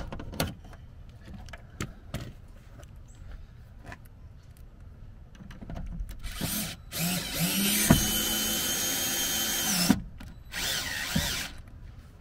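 Cordless drill boring a screw hole at an angle through a plastic speaker mounting bracket on a car door. A short burst comes first, then a steady high-pitched run of about three seconds, then another short burst near the end. Light tool-handling clicks come before it.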